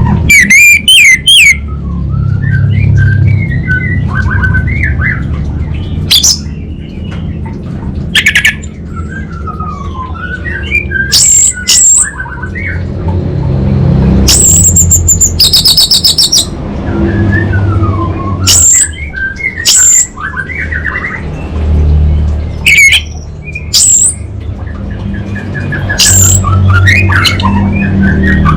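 Orange-headed thrush singing: varied warbling phrases broken by about ten loud, sharp high notes and a brief fast trill partway through, over a steady low hum.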